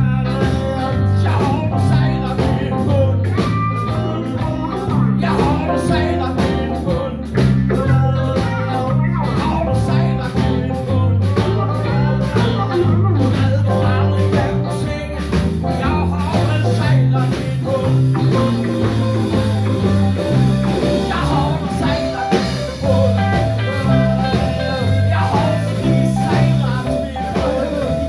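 Live blues band playing: electric guitars over electric bass, drums and keyboard.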